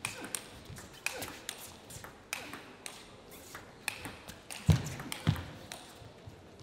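Table tennis rally: the celluloid ball clicking off the rackets and the table in an irregular back-and-forth, with two heavier thumps a little past halfway.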